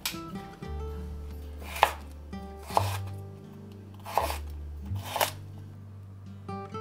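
Kitchen knife chopping on a cutting board: about five single cuts, spaced roughly a second apart, over soft background music.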